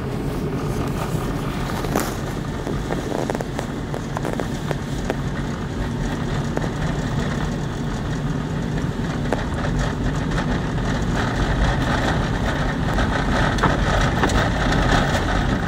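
A 4x4 driving through deep snow: the engine runs under load while the tyres churn, and a dense crackle of snow strikes the vehicle, slowly growing louder toward the end.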